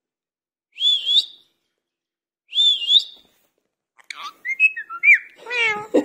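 Indian ringneck parakeet giving two short whistles, each swooping and then rising, about a second and a half apart. It then breaks into a quick run of varied chattering and squeaky calls, ending in voice-like talking sounds near the end.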